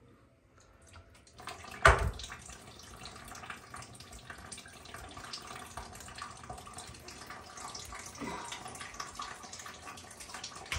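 Whey dripping and splashing as fresh cheese curd is pressed and squeezed by hand on a plate, with one sharp knock about two seconds in.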